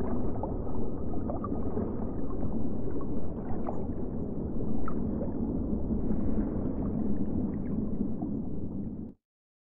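Underwater ambience: a steady deep water rumble with scattered short rising chirps, cutting off suddenly near the end.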